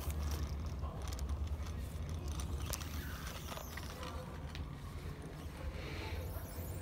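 Bicycle rolling along a tunnel floor: a steady low rumble with scattered light clicks and rattles from the bike's mechanism.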